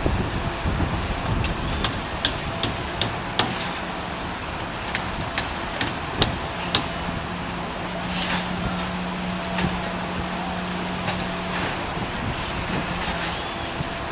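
Steady outdoor rush of road traffic and wind on the microphone, with scattered sharp clicks. A low steady hum comes in about halfway through and stops near the end.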